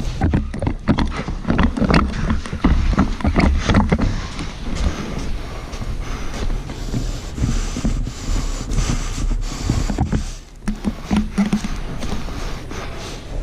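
Heavy rumbling and rustling of a moving body-worn microphone, with many irregular sharp clicks and knocks.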